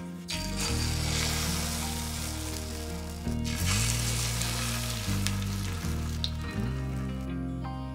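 Egg batter sizzling in hot oil in a frying pan as it is ladled in. The sizzling breaks off briefly a little past three seconds in and stops shortly before the end. Background music with a bass line plays throughout.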